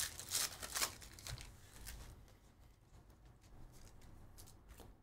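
Wrapper of a Panini Prizm football card pack crinkling and tearing open in the first second, followed by soft rustles and light ticks of the cards being handled and fanned.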